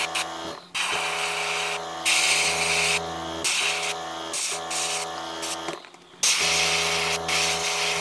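Airbrush spraying paint in spurts of loud air hiss, over the steady hum of its small compressor motor. The hum cuts out briefly a few times, longest just before 6 seconds in, and restarts together with the hiss.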